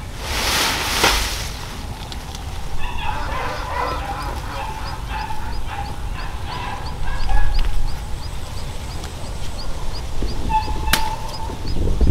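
Farmyard poultry calling in a run of short, broken clucking or honking calls, with one more call near the end. A faint high chirp repeats about three times a second behind them, over a low wind rumble on the microphone.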